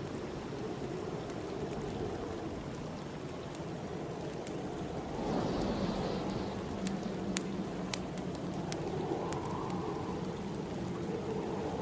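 Snowstorm wind blowing steadily, growing louder in a gust about five seconds in, over the sharp crackles and pops of a wood fire.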